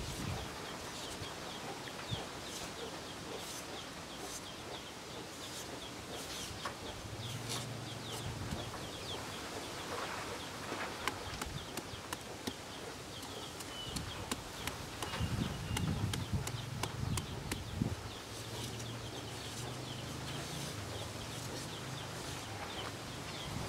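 Large knife blade repeatedly chopping into a peeled green papaya and shaving off the strips to shred it, a run of quick, irregular taps. A low hum comes and goes in the background partway through.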